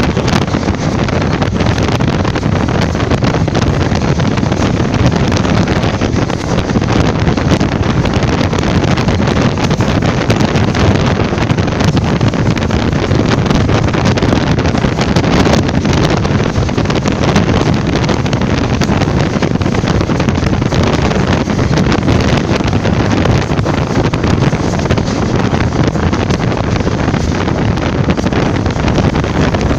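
Loud, steady wind buffeting a microphone held out of a moving passenger train's window, over the continuous running noise of the coaches on the track.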